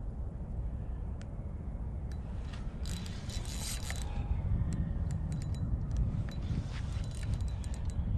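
Fishing rod and reel being worked with the line under tension. There is a burst of scraping and rustling about three seconds in, then a scatter of small clicks, over a steady low wind rumble on the microphone.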